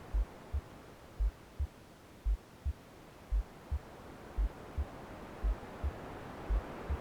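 Womb-sound soundscape: a slow, deep heartbeat in lub-dub pairs, about one double beat a second, over a steady hiss of white noise that dips and then slowly swells.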